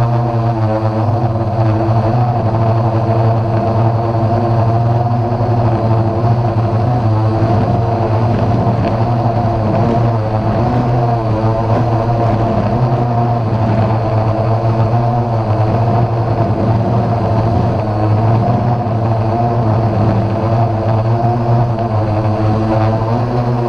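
DJI Phantom quadcopter's motors and propellers buzzing steadily as it hovers, a constant drone with a slightly wavering pitch.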